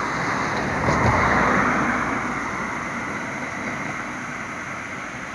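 A road vehicle passing close by on the bridge. Its tyre and engine noise swells to a peak about a second in, then slowly fades.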